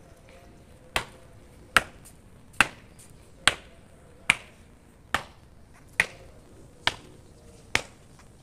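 Ceremonial marching footsteps: hard-soled shoes stamping on pavement in a slow, even rhythm, a sharp step a little more often than once a second, nine in all.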